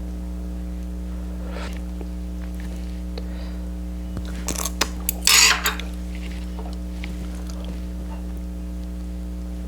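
Eating utensils clicking and scraping against dishes: a few sharp clicks a little over four seconds in, then a louder scrape about five and a half seconds in, over a steady low hum.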